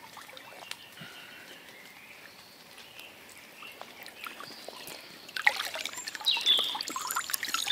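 Birds singing faintly, then from about five seconds in louder splashing, trickling water and clicks, with more bird notes over it.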